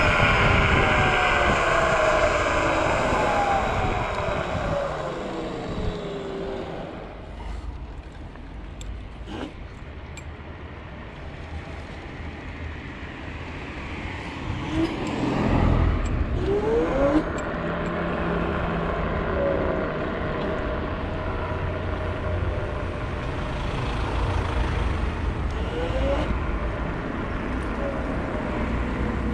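Dual Pro (Dragon Lightning V2) dual-motor electric scooter at speed: the motor whine falls in pitch over the first few seconds as it slows from about 70 km/h to a near stop, with wind rumbling on the microphone. A few metallic clicks from an aluminium keyring come in the quiet stretch, then the whine rises again as the scooter pulls away and cruises.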